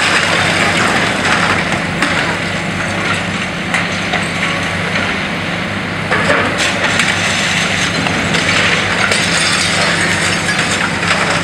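Demolition in progress: a high-reach demolition excavator's diesel engine running steadily under a constant hiss of water spray, with scattered cracks and clatter of breaking concrete and falling debris.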